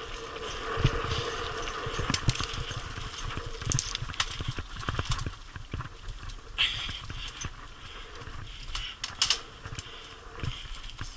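Mountain bike rolling downhill over loose gravel and stones: tyres crunching and the bike rattling, with irregular sharp knocks as it hits rocks, heard through a helmet-mounted action camera.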